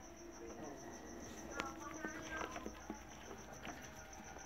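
A cricket chirping in a steady, evenly pulsing high trill, with scattered small clicks and knocks.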